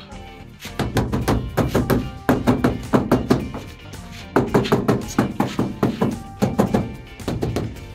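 Background music with a steady beat, over which a rubber mallet thunks repeatedly on a granite skirting strip as it is tapped into place against the wall.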